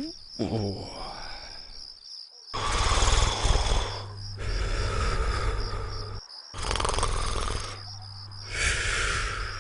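Cartoon snoring sound effect: long rasping in-breath snores with a low rattle, each followed by a breathier, whistling out-breath, repeating about every four seconds over a steady chirping of crickets.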